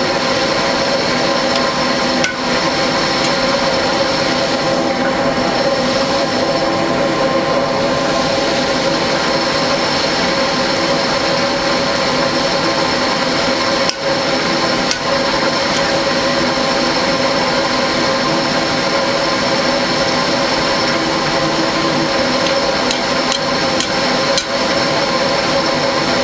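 Small electric blower fan on a coal forge running steadily, a constant hum and whine of air being pushed.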